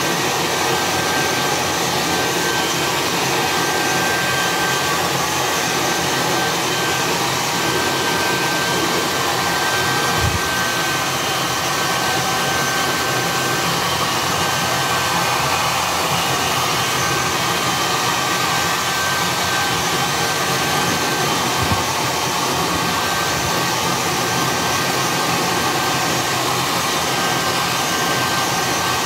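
Handheld hair dryer blowing steadily, with a thin constant whine over its rush of air. Two soft low bumps, about ten seconds in and a little past twenty seconds.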